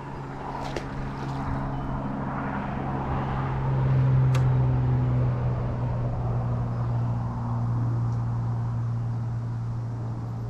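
Steady drone of a motor engine running at an even pace, growing louder about four seconds in and then easing off. A few light clicks sound over it.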